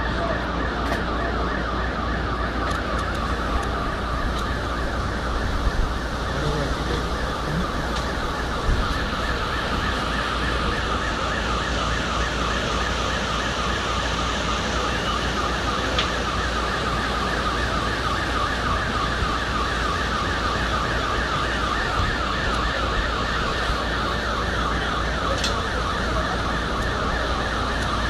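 Electronic siren warbling rapidly and without a break, its pitch sweeping over and over several times a second, above a steady low rumble.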